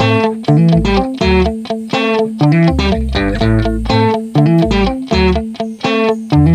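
Background music: plucked guitar with a bass line and a steady beat.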